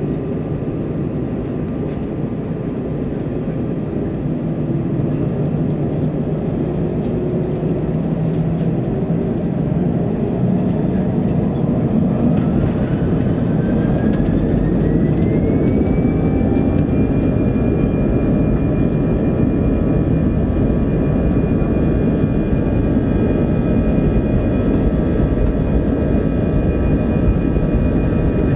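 An Airbus A320's turbofan engines heard from inside the cabin, at first a low rumble. About twelve seconds in they spool up to takeoff thrust: a whine rises in pitch over about four seconds, then holds steady as the engine noise grows louder.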